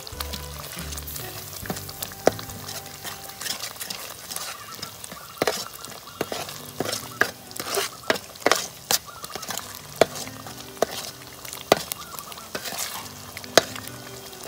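A metal ladle stirring thick coconut-milk soup in a large aluminium pot. Irregular sharp clicks and scrapes of the ladle against the pot sound over a steady hiss from the cooking pot, and the clicks come thickest in the middle.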